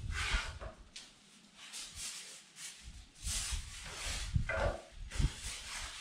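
Aluminium foil crinkling and rustling in irregular bursts as it is folded around a steak.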